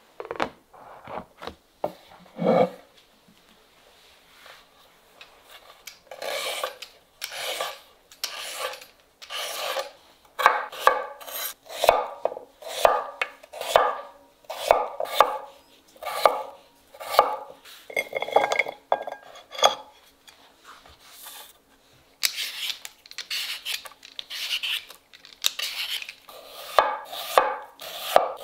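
Chef's knife slicing peeled carrots and potato on a wooden cutting board, in a run of scraping cuts about one a second with a short pause midway. A few short knocks come near the start.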